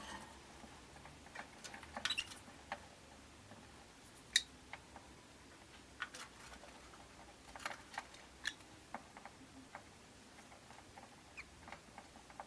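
Scattered small clicks and taps from rosy-faced lovebirds in their cage, about a dozen spread irregularly, the loudest about four seconds in.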